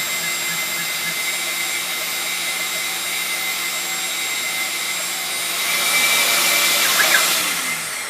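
Shop vacuum and CNC router spindle running together while a 1/8 inch end mill cuts a pocket in pine, a steady whirring noise with a hum. It grows louder for a couple of seconds near the end, then starts to die away as the machine stops.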